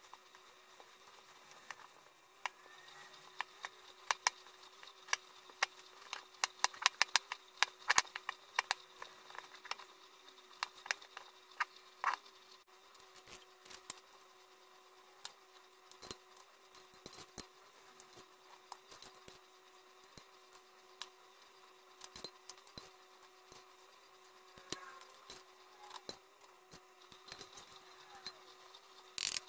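Kitchen handling sounds: scattered sharp clicks and taps of hands working dough in a glass bowl and a knife splitting a vanilla pod on a wooden cutting board. The taps are thickest a few seconds in and thin out after the middle, over a steady faint hum.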